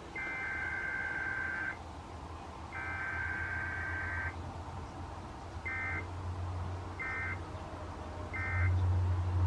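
NOAA Weather Radio SAME alert data bursts for a Required Weekly Test: two long bursts of raspy two-tone data (the header), then three short bursts (the end-of-message code), evenly spaced. A steady low hum sits underneath and gets louder near the end.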